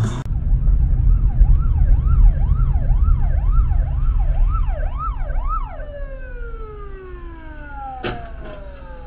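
Emergency-vehicle siren wailing up and down about twice a second over a car's low engine and road rumble. After about six seconds it gives way to a tone that slides steadily lower. A short sharp knock comes near the end.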